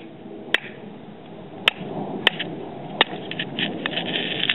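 A hammer striking the ice frozen over a basin of water. There are four separate sharp knocks, then a quick flurry of smaller taps and crackles near the end. The ice is a bit hard and does not break easily.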